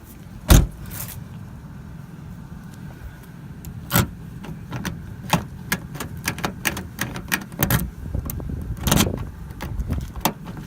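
A freshly cut key being worked and jiggled in a car lock: a string of irregular sharp metallic clicks and knocks, the loudest about half a second in, at about four seconds and at about nine seconds.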